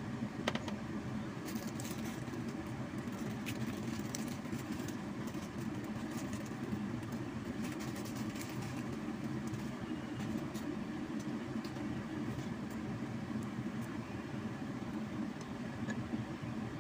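Pot of water at a rolling boil with instant noodles cooking in it: a steady low bubbling rumble scattered with small pops and crackles, with a sharper click about half a second in.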